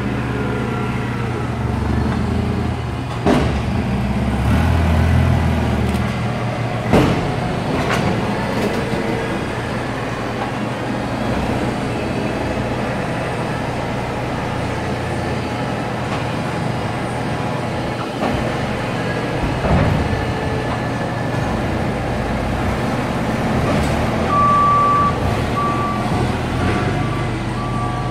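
Propane-powered forklift engine running steadily as it moves, with a few sharp knocks along the way. Near the end its reversing alarm starts, a repeating high single-tone beep.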